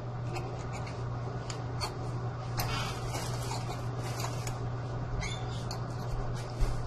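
A metal fork clicking and scraping against a ceramic plate while cutting through a cooked ravioli, over a steady low hum.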